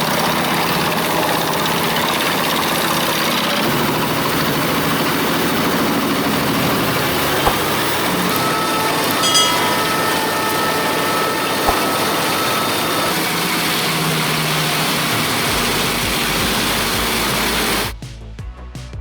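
Pezzolato PTH 1400/820 Allroad drum wood chipper running steadily, its Scania engine under load while the drum grinds branches and forestry waste into chips, with a few sharp clicks. It cuts off abruptly near the end, giving way to music.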